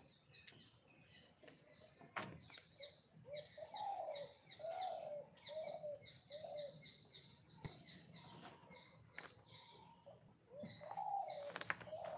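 Birds calling faintly: a run of about five short rising-and-falling cooing notes in a row, with high chirps and twitters around them and a few light clicks.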